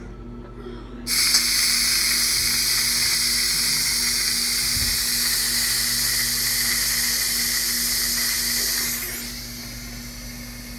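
Steam hissing from the release valve of a GoWise USA electric pressure cooker, turned from Pressure to Steam about a second in to let the pressure out after cooking. The loud hiss starts suddenly, holds steady and dies down near the end.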